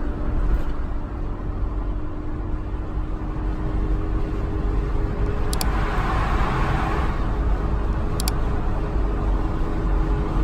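Steady road and engine noise inside a moving car at highway speed: a low rumble with a constant hum. A brief swell of hiss comes about six seconds in.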